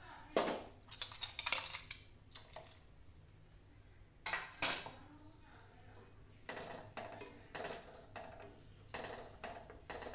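A metal spoon clinking and scraping against a steel bowl as its contents are tipped into the pan, with one sharp clink about four and a half seconds in. After that comes a wooden spatula stirring thick curry in a kadai, a run of short, soft scraping strokes.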